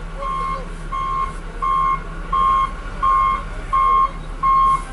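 Backup alarm on heavy snow-removal machinery beeping steadily, about three beeps every two seconds and growing louder, over the steady hum of an engine running.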